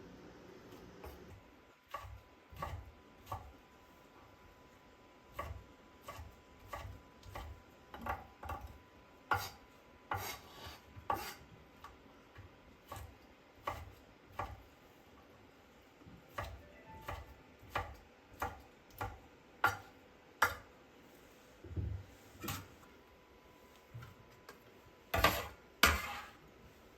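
Kitchen work: irregular light knocks and taps of dishes and utensils being handled, about one or two a second, with two louder clatters near the end.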